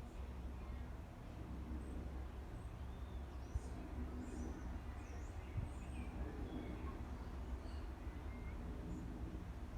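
Faint bird chirps and short whistled glides over a steady low rumble, the chirps clustering a few seconds in.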